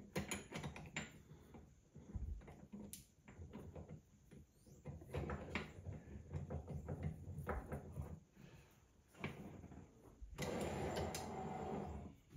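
Scattered light metal clicks and clunks as a lathe tailstock and its add-on drilling lever linkage are handled and fitted back together. Near the end there is a steady rushing noise for about two seconds.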